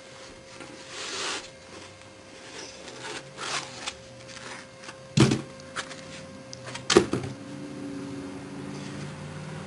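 Foam packing end caps being pulled off a metal NAS enclosure: scraping and rustling of the foam, with two sharp knocks about five and seven seconds in. A faint low hum sets in during the second half.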